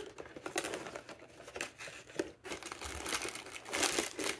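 Cardboard door of an advent calendar being pulled open and a small plastic bag of craft pieces crinkling as it is handled and drawn out, the crinkling louder near the end.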